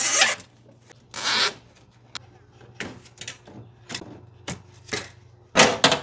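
Thick electrical cables rubbing and scraping as they are handled and pushed into inverter terminals: three short bursts, at the start, about a second in and near the end, with small clicks and taps between.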